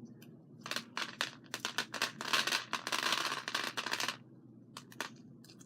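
Close-up handling noise: a run of small clicks and crackly rustling from a cut-open hacky sack and its filling being picked through by hand, densest in the middle and stopping about four seconds in.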